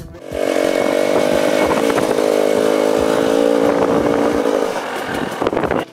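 GasGas EC 300 two-stroke enduro bike's engine running hard at high, steady revs, then dropping away about five seconds in.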